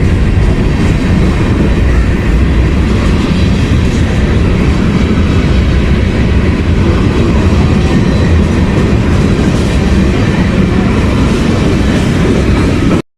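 Train running on the track with a loud, steady rumble of wheels and rolling cars; the sound cuts off suddenly near the end.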